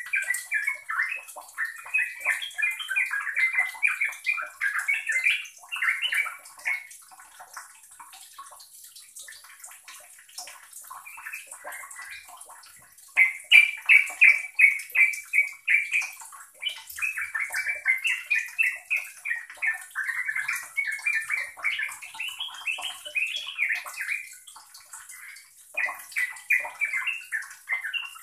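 Yellow-vented bulbul (trucuk) singing a fast, run-on bubbly chattering song in long runs of quick notes. It goes quieter about a quarter of the way in and starts up loudly again near the middle.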